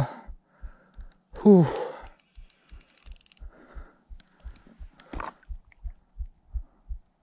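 A man's loud wordless exclamation, falling in pitch, about one and a half seconds in, and a shorter one about five seconds in, while fighting a hooked trout. Under them are steady low thumps about three a second, and a quick run of fast ticks a couple of seconds in.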